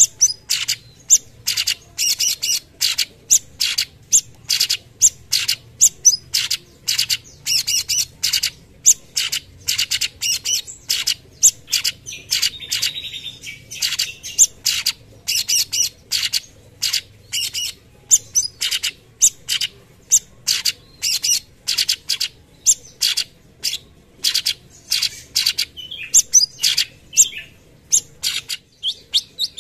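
Leafbird (cucak cungkok) singing a fast, unbroken string of short, sharp, high chirps, about two to three a second, the rapid 'tembakan' phrases prized in a songbird's repertoire. A brief longer warbled phrase comes about halfway through.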